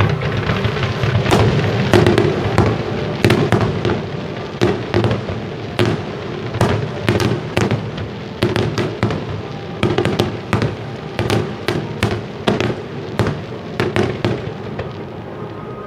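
Fireworks finale barrage (a starmine): a rapid, irregular string of sharp bangs and crackles, about two or three a second, over a continuous rumble as fans of comets and aerial shells go up together.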